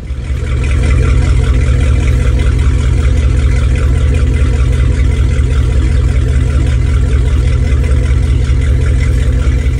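Maxum 3500 SCR cabin cruiser's inboard engines idling at the dock after a cylinder head rebuild: a steady, deep engine and exhaust drone that swells up in the first second and then holds level.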